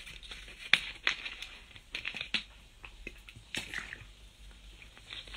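Several irregular sharp clicks and knocks with some rustling, the loudest about a second in.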